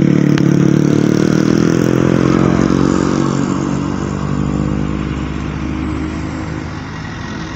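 A road vehicle's engine running close by, loudest at the start and slowly fading as it pulls away, its note dropping slightly.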